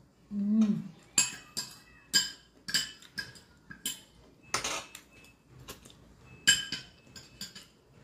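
Metal spoon and fork clinking and scraping against a dinner plate while eating: about a dozen sharp, ringing clinks at an irregular pace, the loudest about a second in and about two-thirds of the way through. A short hum of the voice comes just before the first clink.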